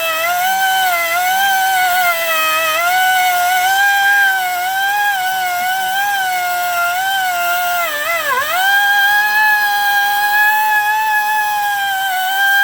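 Small handheld rotary tool with a grit sanding pad, whining at high speed as it polishes a geode. Its pitch wavers as it is pressed against the stone and sags sharply under load about eight seconds in, then recovers.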